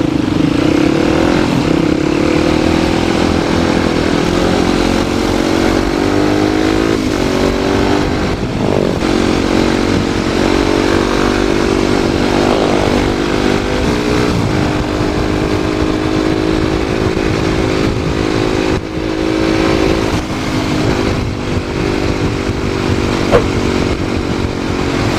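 Motorcycle engine running under way, its pitch rising and falling a few times with throttle and gear changes, over a low wind rumble on the helmet microphone.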